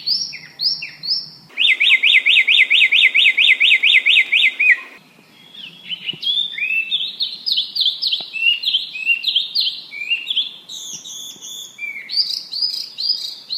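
Small songbirds singing in a spliced compilation. Short high chirps give way abruptly, about a second and a half in, to a fast, even, up-and-down trill of about six notes a second. That cuts off around five seconds in to a run of varied whistled chirps and slurred notes.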